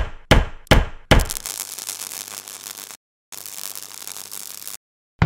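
Intro sound effects for an animated logo: four quick, sharp impacts in the first second, then a long crackling hiss with a low hum beneath it. The hiss drops out briefly about three seconds in, returns, and then cuts off.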